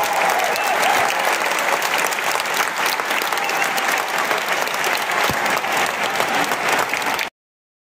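Audience applauding a choir, a dense steady clapping that cuts off abruptly near the end.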